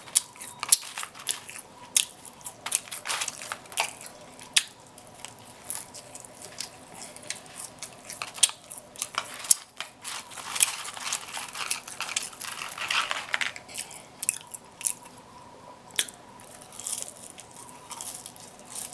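A person chewing food and smacking their lips close to the microphone: a steady run of sharp, wet mouth clicks, busiest a little past the middle.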